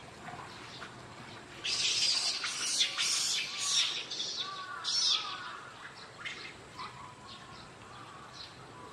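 Macaque screaming: a run of harsh, high-pitched screams from about two to five seconds in, with fainter short calls before and after.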